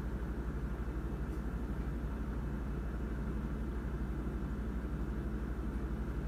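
Steady low rumble, even throughout, with most of its weight in the deep bass.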